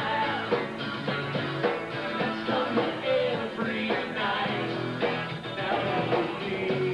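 Live rock band playing: electric guitars, bass and drums with a singer at the microphone.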